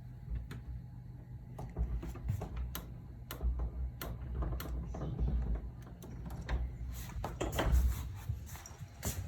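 A door being handled: irregular clicks and knocks with low thumps, the loudest about three quarters of the way through.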